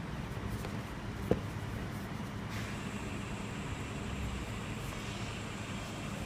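Steady low background hum with a single sharp click a little over a second in, and a faint high whine that starts about halfway through.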